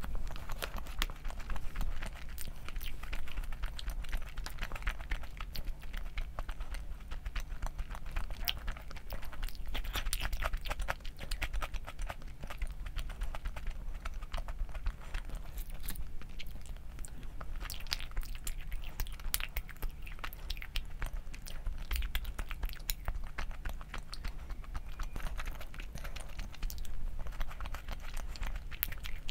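A person chewing and biting food close to the microphone: a steady run of small, irregular wet clicks and crunches, over a low steady hum.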